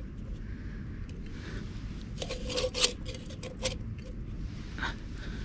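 Metal scraping and clicking from an OEX Tacana camping stove's pot being handled on its burner: a cluster of short scrapes with a faint metallic ring about two to four seconds in, and a single click near the end, over a steady low background noise.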